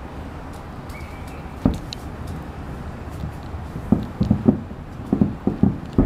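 Distant fireworks booming across the water, heard as dull low thumps: one about two seconds in, then a rapid string of them from about four seconds on. A steady low rumble of city background runs underneath.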